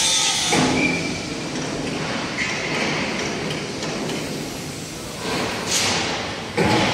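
Steady mechanical workshop noise in a truck factory hall, with a few knocks and hissing clanks of metal, the loudest just before the end.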